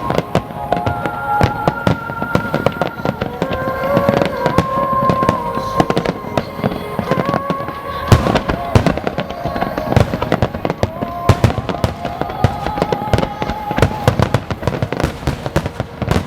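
Large fireworks display: dense shell bursts and crackling in rapid succession, with one especially loud bang about eight seconds in. Music with long held notes plays underneath through loudspeakers.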